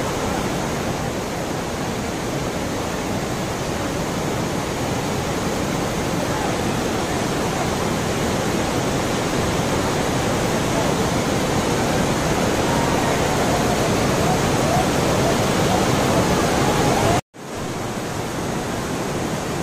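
Torrential rain pouring down, a steady dense hiss. It drops out for an instant near the end.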